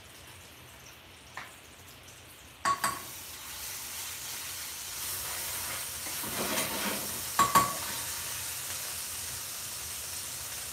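Hot cooking oil in an aluminium frying pan sizzling as a steel ladle stirs it. The sizzle starts about three seconds in with a couple of clinks of the ladle on the pan, swells midway, and near the end there are two sharp clinks of the ladle knocking against the pan.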